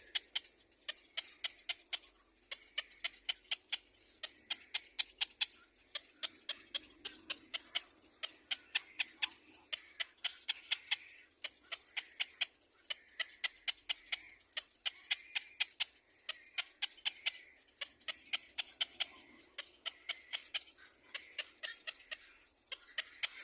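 Fledgling bird giving rapid, sharp begging calls, about five a second, in runs of a few seconds with short pauses.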